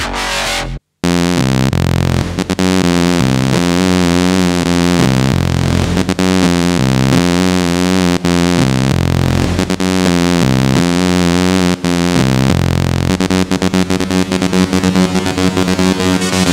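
Nord Wave synthesizer playing a dense, noisy electronic passage over a stepping bass line, with wavering tones above. The sound cuts out for a moment about a second in, and near the end it turns choppy and pulsing.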